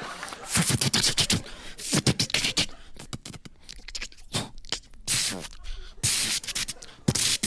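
A man making sound effects with his mouth into a microphone: a string of short hisses and whooshes with a few brief gliding vocal noises in between.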